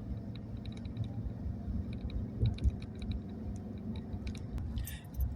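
Road and engine noise inside a moving vehicle's cab: a steady low rumble with light, irregular clicks and ticks over it.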